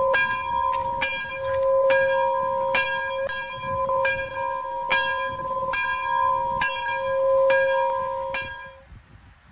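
A bell ringing in steady, evenly spaced strokes, a little under two a second, which stops shortly before the end.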